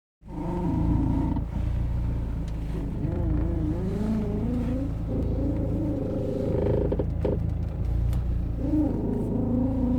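Audi A4 (B6) steering creaking as the wheel is turned, a wavering tone that bends up and down over the low, steady sound of the running engine.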